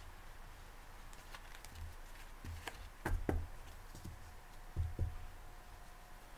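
Tarot cards being picked up and stacked on a cloth-covered table: a few light card clicks and soft thumps, the loudest about three seconds in and again about five seconds in.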